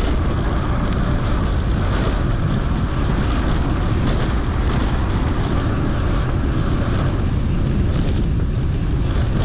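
Steady wind rush on a GoPro's microphone while mountain biking along a dirt road, with the low rumble of the tyres and bike underneath.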